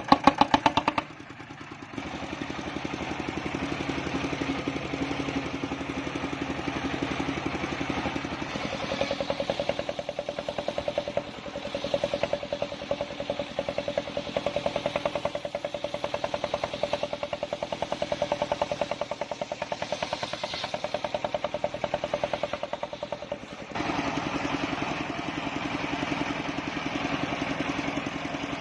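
Engine driving a homemade circular sawmill, running steadily with a fast even pulse. From about 9 seconds in its note shifts higher and grows more uneven, then settles back to the first note a few seconds before the end.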